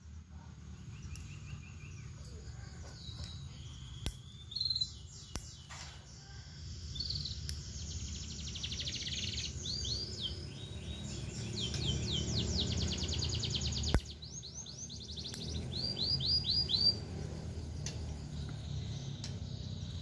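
Caged songbird singing runs of rapid, high, repeated trill notes that go on for several seconds from about a third of the way in, with short trill series near the end. A few sharp clicks and a steady low rumble sit underneath.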